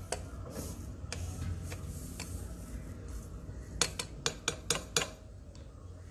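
Ceramic plate and spoon clinking against a drinking glass as sweet basil (sabja) seeds are tipped into water. A few soft taps, then a quick run of about six sharp clinks in the second half.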